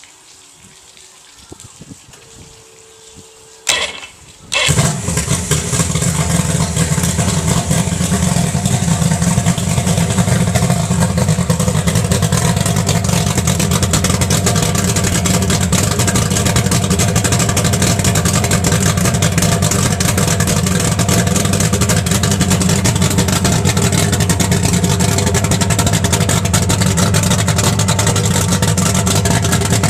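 Mercury Racing outboard motor being started: after a short tone and a brief burst of cranking, the engine catches about four and a half seconds in. It then runs steadily and loudly at an even speed.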